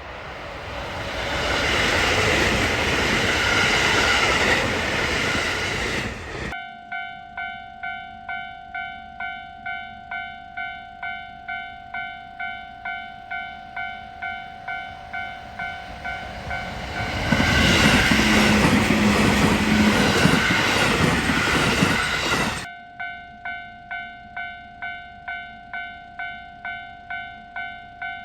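A train passes with a loud rush of wheel and running noise. It breaks off suddenly into a level crossing warning bell, a ringing tone repeated about twice a second. A second train rushes past, and then the crossing bell rings on again.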